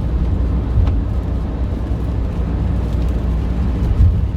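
Steady low rumble of road and engine noise heard inside a moving van's cabin, with a couple of faint knocks.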